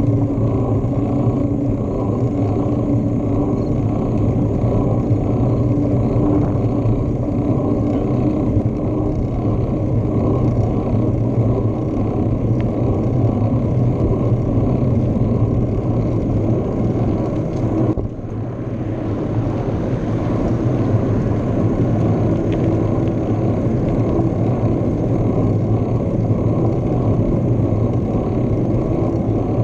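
Steady low rumble of a bicycle ride recorded on a handlebar-mounted action camera: wind buffeting the microphone, with tyre and road noise, briefly dropping a little past halfway before building again.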